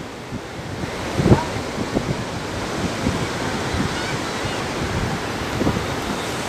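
Sea surf breaking and washing on the beach, a steady rush, with wind buffeting the microphone in a few low thumps.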